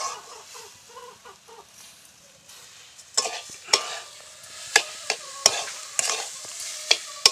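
A spatula stirring and scraping grated coconut and sugar around a kadai over a hot fire, with a faint sizzle underneath. Sharp scrapes against the pan come irregularly, about one or two a second, from about three seconds in.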